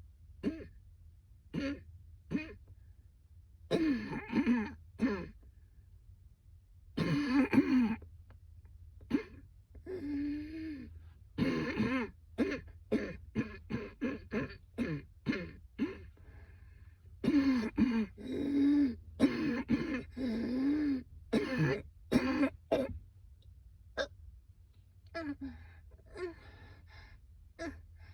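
A woman in a persistent coughing fit: repeated short, hard coughs and throat clearing in rapid runs, some with her voice in them. The coughs come in bunches with short pauses between, and grow sparser near the end.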